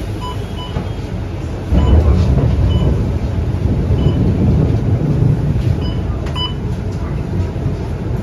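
Scania K230UB bus's five-cylinder diesel engine heard from inside the cabin, rising to a louder low rumble about two seconds in as the bus pulls away, then easing off. Under it runs a steady hiss of rain and road noise, with short high ticks repeating.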